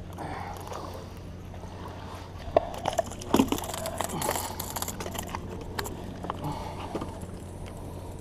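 Knocks, clicks and rustling from handling a freshly caught speckled trout in a boat, with the loudest knocks about two and a half to three and a half seconds in. A low steady hum runs underneath.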